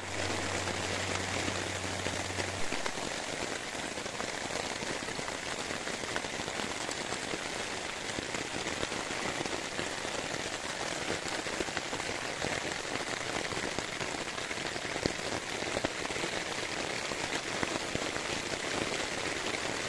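Steady rain falling on a tarp shelter and the surrounding pine woods, an even continuous patter.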